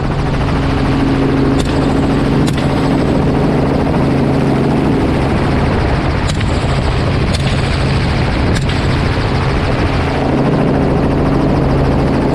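Helicopter in flight, heard from inside the open-door cabin: a steady rotor-and-engine drone with a constant low hum, under a wash of rushing air.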